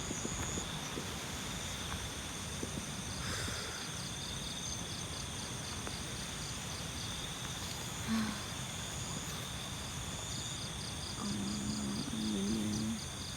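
Crickets and other night insects chirring, several steady high trills at once, one of them pulsing in an even rhythm, over a low rumble. A voice hums a few short low notes near the end.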